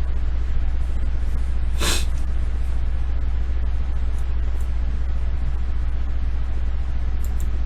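Steady low background hum on the recording, with one short noisy burst about two seconds in and a few faint clicks.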